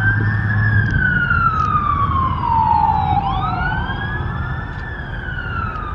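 Emergency vehicle siren wailing, its pitch rising and then falling slowly in long sweeps of about three seconds each, over a steady low rumble.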